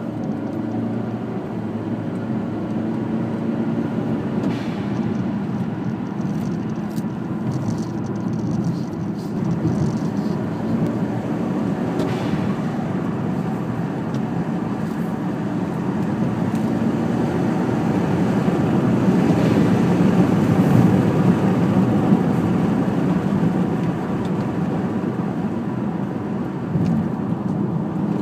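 Cabin sound of a 2011 Kia Optima SX's 2.0-litre turbocharged four-cylinder driving, with steady engine and road noise that grows louder for a few seconds past the middle. A few short whooshes come from the turbo bypass valve venting to the open air through a filter when the throttle closes. Later the driver's window is cracked open.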